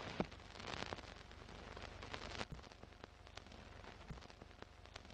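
Faint old-film crackle: light hiss with scattered clicks and pops over a low flutter, the sound effect laid under a film-leader countdown.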